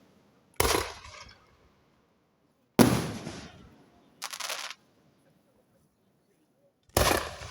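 Aerial firework shells bursting: four separate bangs a couple of seconds apart, most dying away over about a second, the third shorter and cut off more abruptly.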